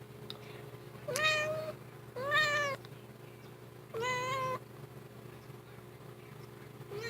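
Domestic cat meowing three times, each meow about half a second long, with a fourth starting near the end.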